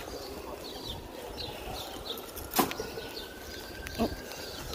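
Outdoor ambience with small birds chirping in short, high calls, and one sharp click about two and a half seconds in.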